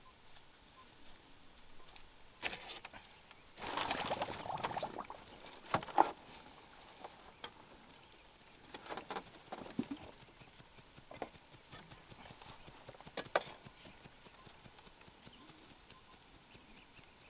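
Scattered knocks and clicks, with a brief rustle about four seconds in and the sharpest knock about six seconds in.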